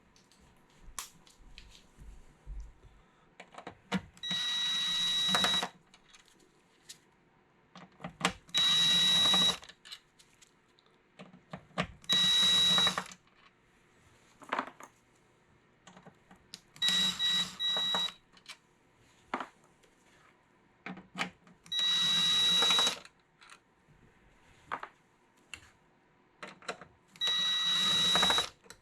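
Cordless power driver spinning out the gas cap's hex bolts in six short runs of about a second each, its motor whining at a steady pitch, with small clicks and taps of handling between runs.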